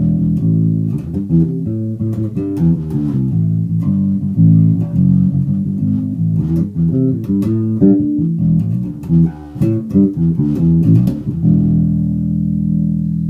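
Nightingale active bass guitar played through a Trace Elliot bass amp with the treble rolled right off: a run of plucked notes in a dark, bassy tone. About two seconds before the end it settles on one note held steady.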